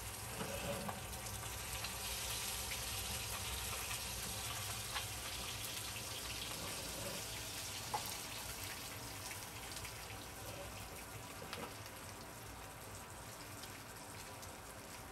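Whole crucian carp browning in hot oil in a carbon steel wok: a steady sizzle with a few sharp pops, slowly easing off a little.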